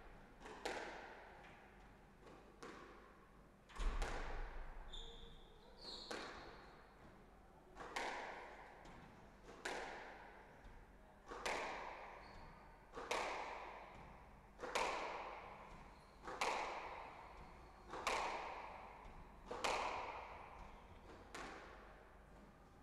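Squash ball being struck back and forth: sharp racket-and-front-wall hits about every one and a half to two seconds, each echoing around the court. A heavier, deeper thud comes about four seconds in, and brief high squeaks come a second or two later.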